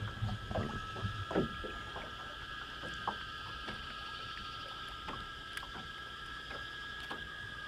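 Irregular light clicks and knocks from gear being handled aboard a small fishing boat, most of them in the first couple of seconds, over a steady, even pair of high tones in the background.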